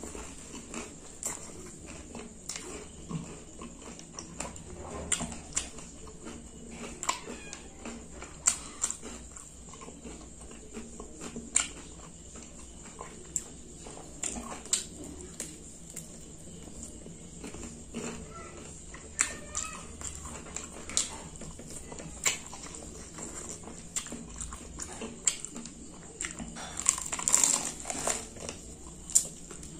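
Close-up eating sounds of sauce-coated fried chicken being bitten and chewed: irregular sharp mouth clicks and smacks about once or twice a second, with a louder, busier bite near the end.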